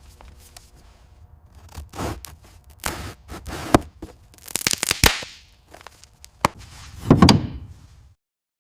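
A quick series of sharp knocks and clicks mixed with short noisy bursts, the loudest about seven seconds in, then cutting off suddenly.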